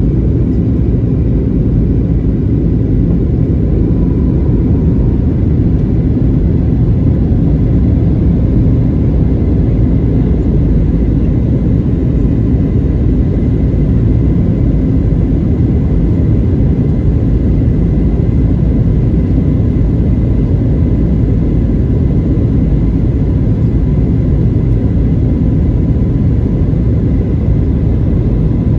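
Steady rumble of a Boeing 737-900 airliner heard from inside the cabin: engine and airflow noise, unchanging, with faint steady tones above the low roar.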